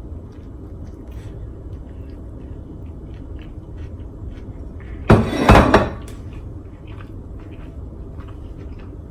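Faint chewing of a bite of steak fajita wrap, with small mouth clicks, and a loud knock about five seconds in that rumbles for under a second.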